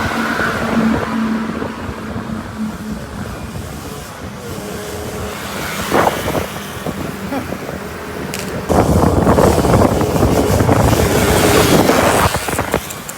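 Yamaha F1ZR's 110 cc two-stroke single-cylinder engine in road-race spec, running with a rough, snoring note. It holds a steady note at first, then is revved hard and loud for about three and a half seconds near the end.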